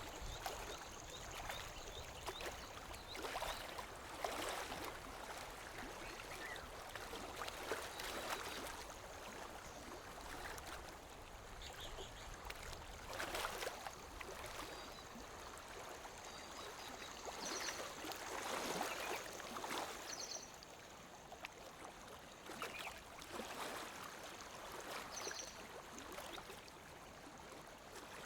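Lake water lapping gently against the shore: a steady wash of water with small surges and splashes every few seconds. A few faint, short high chirps sound now and then above it.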